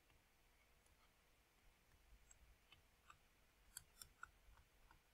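Near silence broken by faint, scattered clicks and taps of a stylus writing on a tablet screen. They start about two seconds in, and the clearest three come close together near the end.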